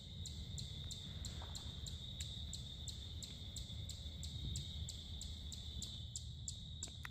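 Evening insects calling: a steady high trill with a sharp chirp repeating about three times a second, over a low steady rumble.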